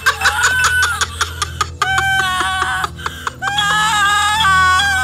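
A woman crying out in anguish: quick broken gasping sobs for the first couple of seconds, then long high-pitched wails held on steady notes, over a low steady musical drone.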